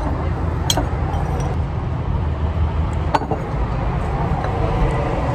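Steady low rumble of outdoor background noise, with two sharp clinks of tableware, one about a second in and a louder one about three seconds in: wooden chopsticks knocking on a ceramic plate.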